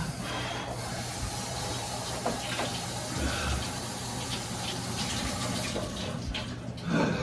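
Water running steadily from a tap, thinning out about six seconds in.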